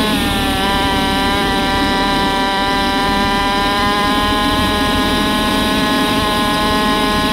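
Chinese 125cc four-stroke dirt bike engine running under way at fairly steady revs. The pitch dips briefly at the start and climbs back within about half a second.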